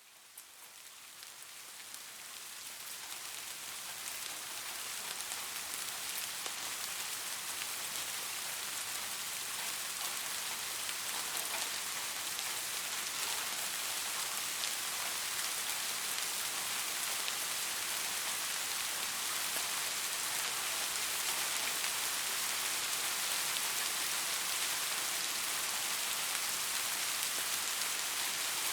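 Soft, steady rain falling, a dense even patter of raindrops on a surface. It fades in over the first few seconds.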